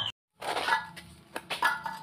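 A short silent gap, then a few light knocks and clinks, about five in under two seconds, as hard objects are handled and set down on the workshop floor.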